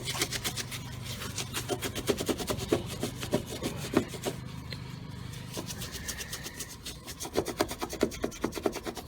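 A cleaning wipe scrubbing hard back and forth over a car's painted body panel, working at stuck-on bird droppings, in quick, regular rubbing strokes.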